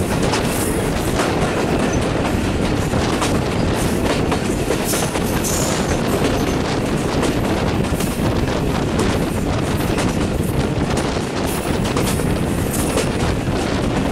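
Old broad-gauge passenger coach running at speed, heard from its open window: a steady rumble of wheels on rail with irregular clacks as the wheels pass over rail joints.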